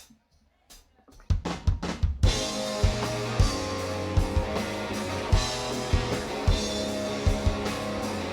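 A live rock band starting a song: a few sharp clicks, then drums and bass coming in about a second in, and the full band with a steady drum beat from about two seconds in.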